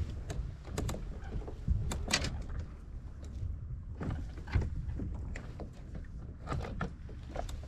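Irregular clicks and knocks of fishing gear being handled aboard a plastic kayak, rods and tackle bumping the hull and holders, over a steady low rumble of wind on the microphone.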